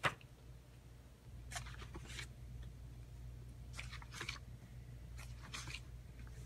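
Faint handling and rustling noises: a sharp click at the very start, then several short scratchy swishes a second or two apart, over a low steady hum.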